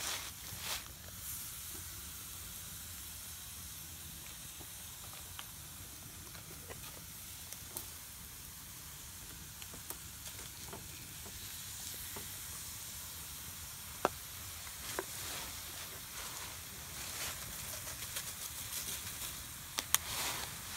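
Squirrel meat sizzling on a foil plate over an open wood fire: a steady hiss with scattered sharp pops, a few louder ones in the second half.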